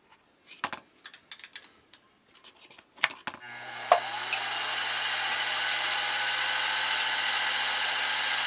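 Small clicks and knocks of hands at the milling machine. About a third of the way in, the mill's spindle motor starts and runs at a steady pitch with a whine, with a single sharp knock soon after. The end mill is cutting down a stack of brass connecting rods.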